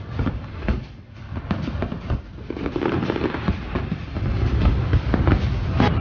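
Aerial fireworks display going off: a rapid run of bangs over a low rumble, growing denser and louder from about halfway through.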